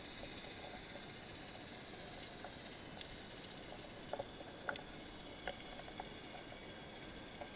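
Underwater ambience picked up by a camera in a waterproof housing: a steady hiss with a few faint, sharp clicks, two close together about four seconds in and more a little later.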